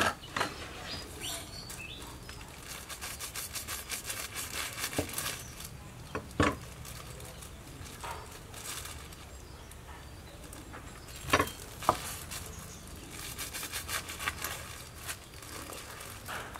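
Thin plastic packaging around enoki mushrooms crinkling and rustling as it is handled and cut open. There is a sharp knock about six seconds in and two more close together about eleven seconds in.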